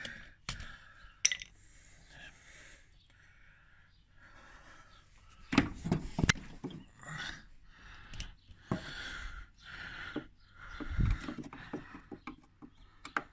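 Handling noises as the camera is repositioned and tools are picked up at the mower: scattered knocks and clicks, the loudest about six seconds in and again near eleven seconds, with scraping and rustling between.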